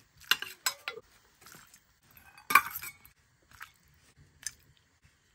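A steel ladle clinking against stainless steel bowls as chicken curry is dished out: a few short, sharp clinks, the loudest about two and a half seconds in.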